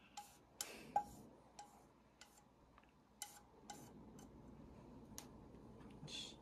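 Wooden chopsticks tapping and scraping against a non-stick frying pan as stir-fried potato and carrot strips are pushed out into a bowl: a dozen or so light, irregular clicks, some with a short metallic ring.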